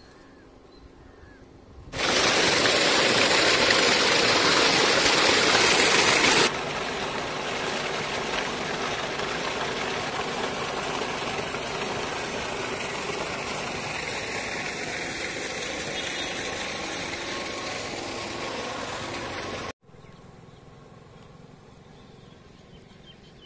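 Water of a shallow stream rushing over grass and leaves: a steady hiss that starts suddenly about two seconds in, drops somewhat in level a few seconds later, and cuts off near the end to a faint background.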